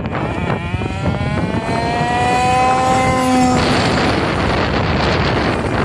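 HSP Backwash two-speed RC car running down the road, its high-pitched engine note climbing steadily in pitch as it accelerates. About three and a half seconds in, the note cuts off into a harsher rushing noise as the car comes close.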